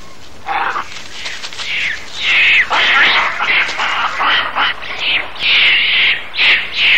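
Rhesus macaques screaming: a run of shrill, harsh calls that grows loud after about two seconds and settles into separate calls about two a second near the end.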